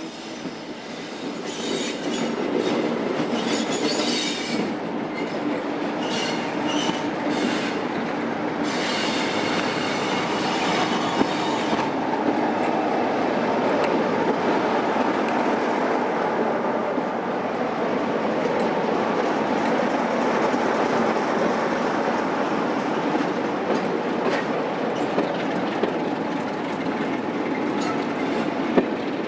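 Two Class 47 diesel-electric locomotives hauling a train slowly past, their engines running under load, with high-pitched wheel squeal in the first twelve seconds or so. Then the coaches roll by in a steady rumble, with a few sharp clicks of wheels over rail joints near the end.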